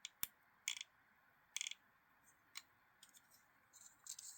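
Faint, sharp clicks and ticks of small metal knife parts and tools being handled during a folding knife's disassembly: a few separate clicks, then a quick run of small ticks near the end.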